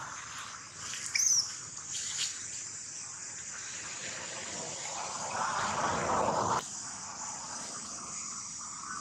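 Steady high-pitched insect drone, with a short high chirp about a second in. A louder rustling noise starts about five seconds in and cuts off suddenly over a second later.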